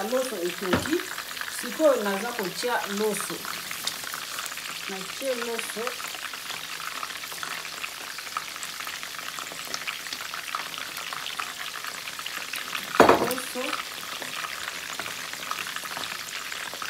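Stock boiling in a pot with a steady hiss and bubbling while rice is tipped in and stirred with a wooden spoon. There is one sharp knock against the pot about thirteen seconds in.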